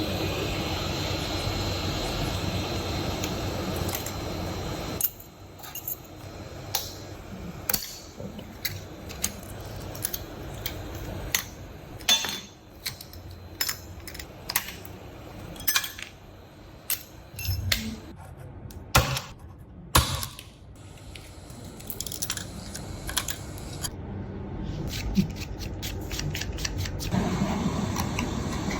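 Small tools clicking and tapping on a phone during a back glass repair: many short, sharp, irregular clicks and taps. A steady noise runs at the start, cuts off about five seconds in and returns near the end.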